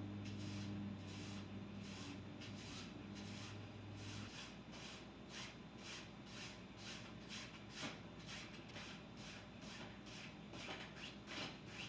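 Faint, scratchy strokes of a paintbrush brushing paint across a stretched canvas, two or three strokes a second in an uneven rhythm. A low steady hum underneath stops about four seconds in.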